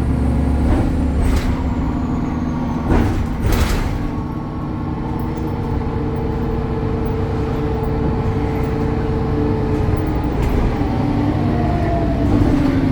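BredaMenarini Avancity Plus city bus heard from on board: its Deutz diesel engine and ZF gearbox running with a steady hum, and a held whine through the middle. Two short hisses of air come about three seconds in.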